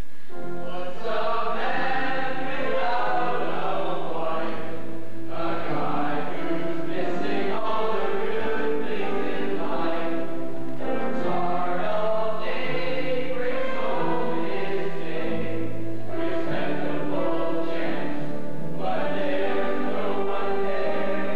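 A group of boys singing a song together in chorus over instrumental accompaniment with a low bass line.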